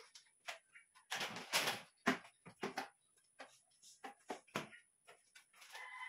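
Shelf panels and parts of a flat-pack shoe rack being handled and set down, giving irregular knocks, clatters and scrapes.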